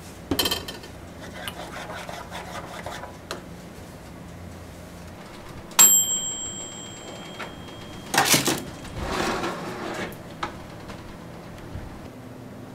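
A toaster oven's timer bell dings once about six seconds in, a sharp strike that rings on for about a second, signalling the bread has finished baking. Short clatters and knocks come before and after it, the loudest about two seconds after the ding.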